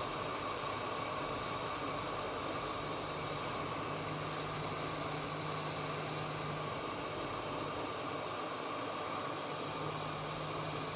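Steady hiss with a faint even whine; a low hum comes in about four seconds in, stops near seven seconds and returns near the end.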